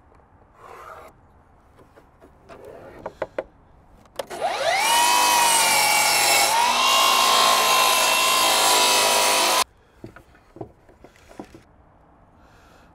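Milwaukee cordless miter saw spinning up with a rising whine and cutting through a wooden board, its blade running steadily for about five seconds before stopping abruptly. Before the cut come light pencil scratches and a few clicks as the board is handled.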